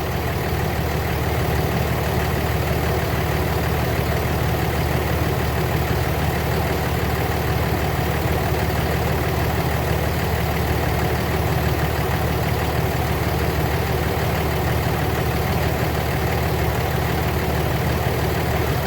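Car engine idling steadily, with the A/C running and the compressor clutch engaged. The mechanic judges the A/C compressor to have failed, because it is not pumping refrigerant.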